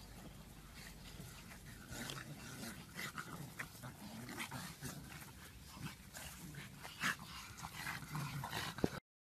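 A group of pugs making short, irregular grunting noises as they play-fight, growing busier after a couple of seconds, with a sharp click just before the sound cuts off abruptly near the end.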